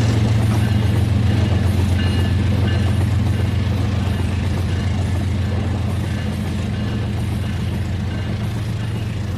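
Battery-powered toy train running on its track: a steady motor hum with a fast, fine rattle of wheels and gears, slowly getting quieter.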